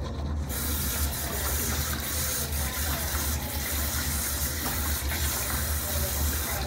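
Tap water running into a bathroom sink in a steady stream, starting about half a second in and stopping near the end, over a steady low hum.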